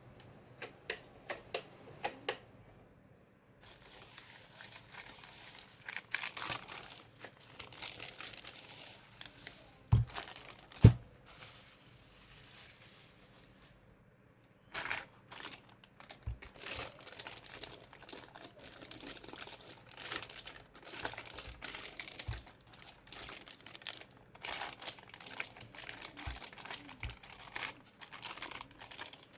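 Plastic packaging crinkling and rustling as it is handled, in irregular bursts with short pauses, and two sharp knocks about ten seconds in.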